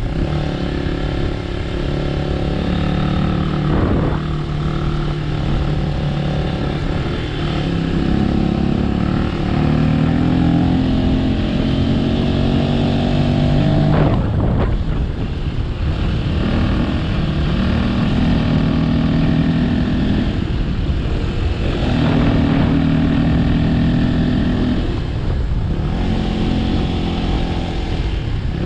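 A motor vehicle's engine running under way, its pitch holding steady and then shifting up or down in steps every few seconds. There are short sharp noises about 4 and 14 seconds in.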